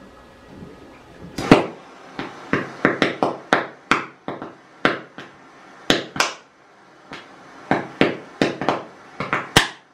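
Oxyhydrogen (HHO) gas from a homemade electrolysis generator popping as a torch flame ignites it at the outlet: about twenty sharp pops at irregular intervals. The loudest pops come about a second and a half in and near the end.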